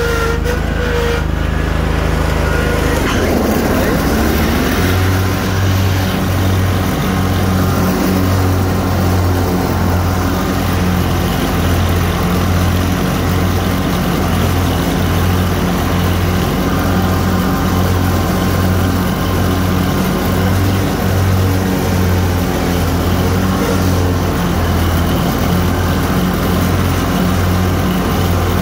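The 25-horsepower Kohler Pro overhead-valve V-twin on a Snapper Z Rider Pro Cruiser zero-turn mower, running at full throttle while the mower drives and cuts grass, heard from the seat. The engine note shifts about three seconds in, then settles into a steady run with a slow, even throb.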